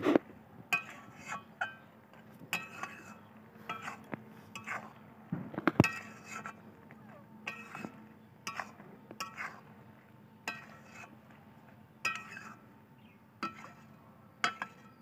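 Flat metal spatula clinking and scraping against a metal kadai as thick jujube pickle is stirred, sharp ringing clinks at an uneven pace of one or two a second, the loudest about six seconds in.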